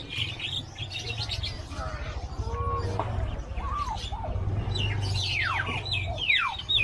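Many birds at an animal market chirping and calling, with quick downward-sliding chirps and short arching whistles, over a steady low hum.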